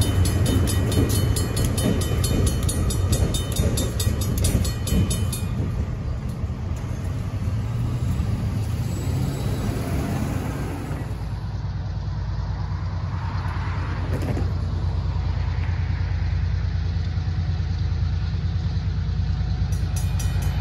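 Grade-crossing bell ringing rapidly over the low rumble of a diesel switcher locomotive pulling passenger cars across the crossing. The bell stops about five seconds in, leaving a steady low rumble, and a crossing bell starts ringing again near the end.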